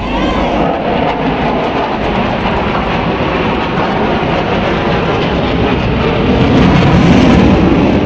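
Fighter jet's engine noise overhead, a dense steady rush that grows a little louder near the end.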